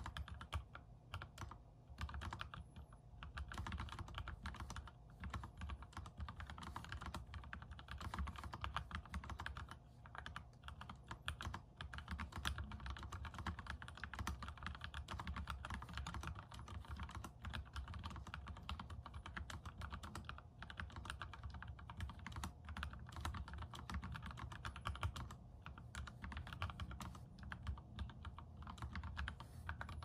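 Continuous typing on a Daisy 40% mechanical keyboard with lubed Cherry MX Yellow linear switches, a POM plate and XDA-profile keycaps: a dense stream of keystrokes with a few brief pauses.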